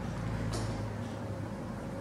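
Steady low hum and rumble of the room, with a brief scratch of a fine-liner pen drawn across paper about half a second in.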